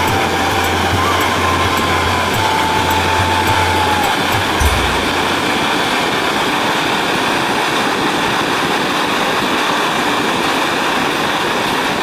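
Ground fountain firework hissing steadily as it sprays a tall column of sparks. A low hum and a faint wavering tone sound along with it for the first four seconds or so.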